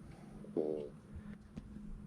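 Quiet work-area room tone with a steady low hum. About half a second in there is a brief pitched sound, and a few faint clicks follow.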